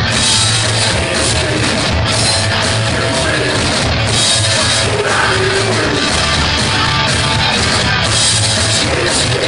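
Psychobilly band playing live at full volume: upright double bass, electric guitar and drum kit in a dense, steady wall of sound with a pulsing beat.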